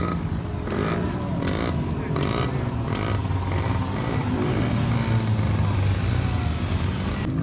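Motorcycle engines running, with the pitch rising and falling as they rev. There is a rapid run of short, sharp bursts in the first three seconds.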